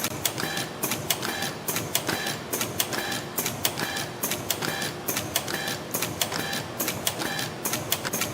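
CNC extension spring machine (YHM EF-210A) running in production, coiling 0.9 mm wire and forming English hooks. It repeats a steady cycle about every 0.7 seconds: a short high whine of the servo feed with a rapid clatter of mechanical clicks.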